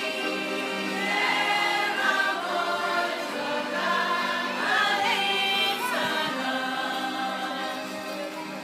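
Arbëreshë folk group singing a vallja song in chorus, with accordion accompaniment holding steady notes beneath the voices.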